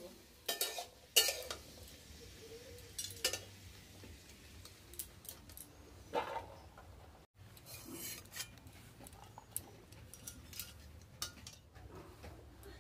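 Long metal spatula scraping and knocking against a steel karai as fried vegetables are stirred and scraped out onto a steel plate: scattered, irregular clinks and scrapes.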